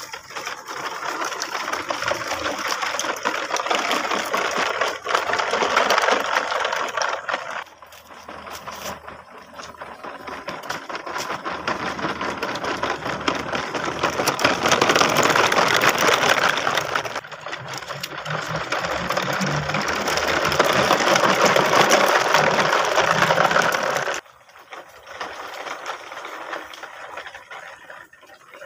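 A rattling mechanical whir that runs in three long stretches, briefly dropping away twice, then turns quieter a few seconds before the end.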